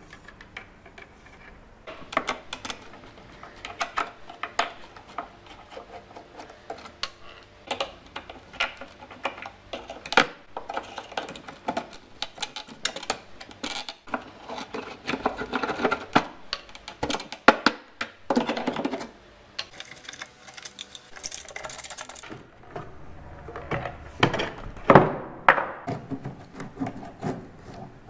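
Hand tools working on the rusty iron hinge of an old wooden chest: a run of sharp clicks and taps with bursts of scraping, loudest about halfway through and again near the end.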